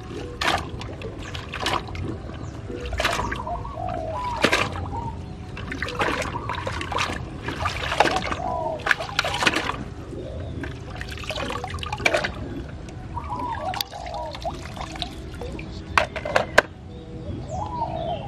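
Plastic toy dump truck dragged on a string through shallow water, splashing and churning it in irregular surges every second or two.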